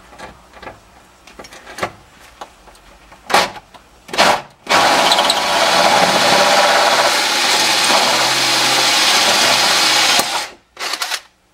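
Cordless drill spinning a spot weld cutter into a spot weld on a rusty steel floor pan. Two short bursts come first, then about six seconds of steady cutting on the metal, then one more brief burst near the end. The cutter bores right through the floor sheet metal.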